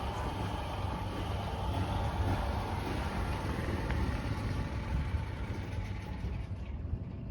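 Steady low engine-like rumble under a haze of outdoor noise, with the higher hiss thinning out near the end.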